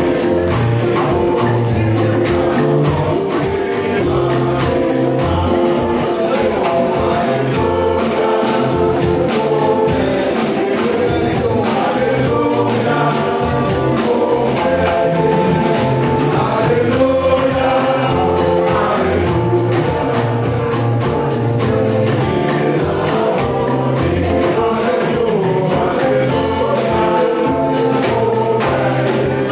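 A choir singing a gospel song, accompanied by keyboard and drum kit, with a steady beat.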